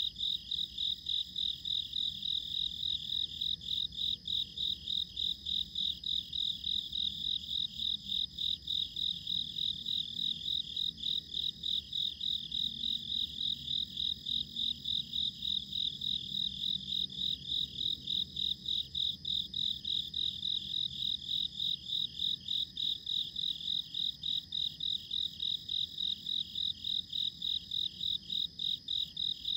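Crickets chirping: a high, even chirp repeating several times a second without a break.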